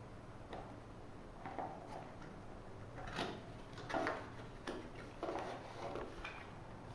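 Cardboard product box being handled and its flap opened: a string of short scrapes and rustles, the loudest a little past the middle.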